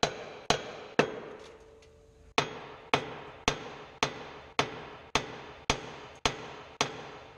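Hammer blows on the cast-iron steering knuckle of a 1990 Honda Civic, about two a second with a pause after the first two, each with a short metallic ring. The knuckle is being struck to shock the upper ball joint's tapered stud loose from it, and the taper has not broken yet.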